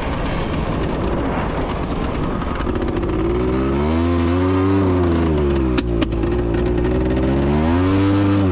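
ATV engine running on a 3D-printed carbon fiber piston, ridden at wide-open throttle, its note rising and falling. A few sharp clicks sound near the middle. The piston is overheating and starting to melt.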